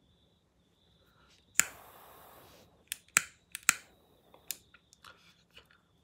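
Clipper Jet torch lighter fired with its flame set to low: a sharp ignition click about a second and a half in, followed by about a second of jet-flame hiss, then several more sharp clicks.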